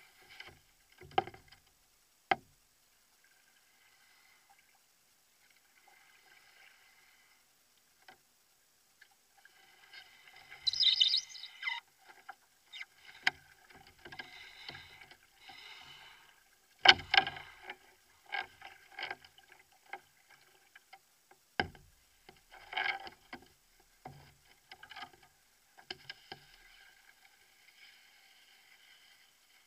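Canoe being paddled: irregular paddle strokes splashing and swishing in the water, with water trickling off the blade between strokes. A few sharp knocks stand out, the loudest about a second and two seconds in and again near seventeen and twenty-two seconds.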